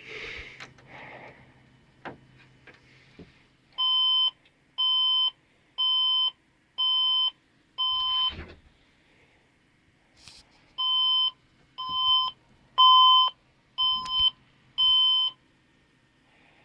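HP desktop computer that will not boot, beeping an error code: five short, even beeps about a second apart, a pause of a couple of seconds, then the same five again.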